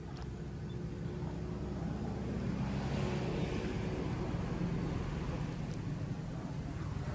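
Low, steady hum of a motor vehicle engine running, growing a little louder over the first few seconds.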